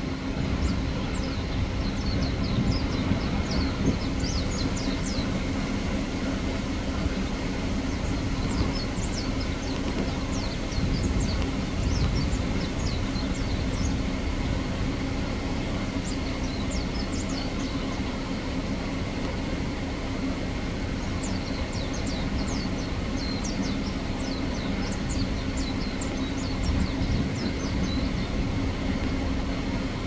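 A steady low mechanical drone, like an idling engine, runs under the whole scene, with several bursts of thin, quick, high bird chirps over it.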